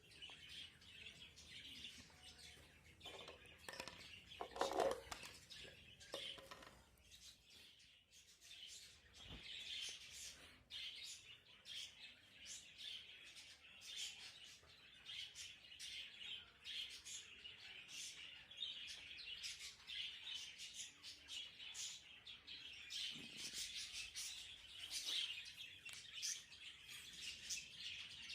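A flock of pet budgerigars chattering and chirping continuously, a dense overlapping warble of short high chirps, with one louder, lower call about four seconds in.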